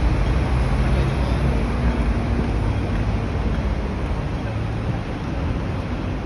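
Road traffic noise from a wide city street: a steady rumble of vehicle engines and tyres.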